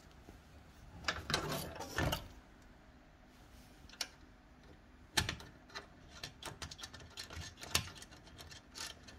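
Light clicks, knocks and scraping as a small switch and its wires are worked loose from the inverter's sheet-metal front panel. There are sharper knocks about four and five seconds in, then a run of quick irregular clicks.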